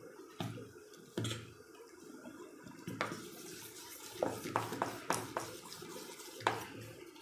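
A steel spoon stirring thick rice-and-urad-dal batter with chopped vegetables in a stainless steel bowl: a wet swishing churn, with short knocks of the spoon against the bowl now and then.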